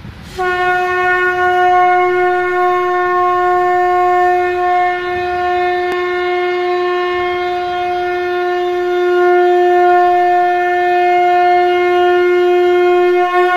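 Conch shell (shankha) blown in one long, steady note, held for about thirteen seconds.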